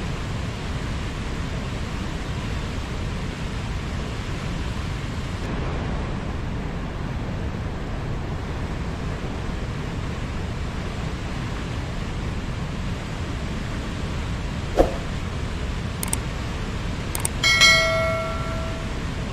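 River water rushing steadily. Near the end come a few sharp clicks and a short bell-like metallic ring.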